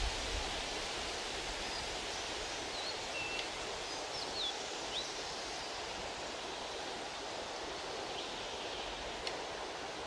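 Steady, even rushing noise of an outdoor nature soundscape. A few short high bird chirps fall in the first half and once near the end, with a single faint click near the end.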